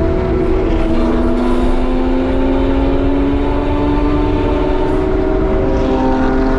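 BMW E36 320i Touring's 2.0-litre straight-six heard from inside the cabin under full acceleration. About half a second in its pitch drops with an upshift, then rises steadily as the engine pulls through the gear.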